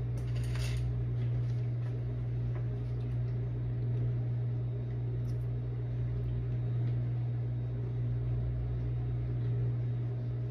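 Over-the-range microwave's vent fan running with a steady low hum.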